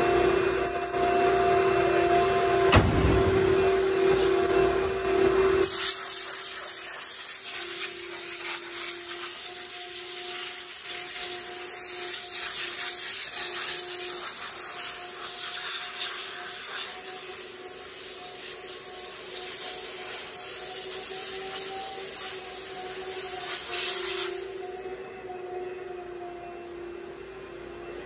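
A small electric motor runs steadily with a whine, with a sharp knock about three seconds in. About six seconds in, a strong rushing hiss starts over it and drops away near the end.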